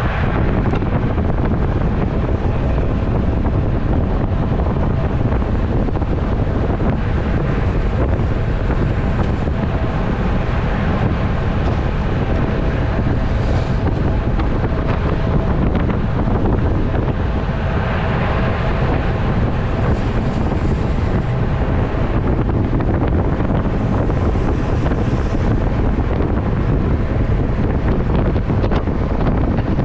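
Wind rushing over a microphone mounted on a road bike riding fast, a steady loud low rumble.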